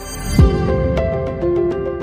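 Background music swelling in, opening with a deep falling boom about half a second in, then held notes over a steady light beat.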